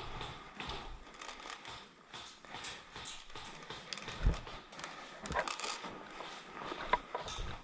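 Rustling and crinkling of clothing and gear with irregular footsteps, as a player moves. A few dull thumps and sharp clicks stand out about four, five and seven seconds in.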